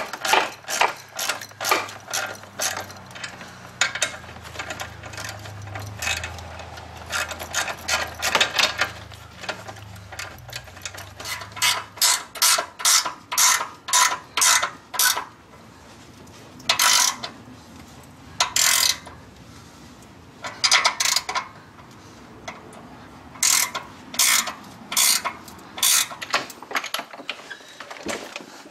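Socket ratchet clicking as a nut is tightened on the exhaust clamp where the crossover pipe meets the rear header: quick runs of clicks, then slower, separate pulls in the second half.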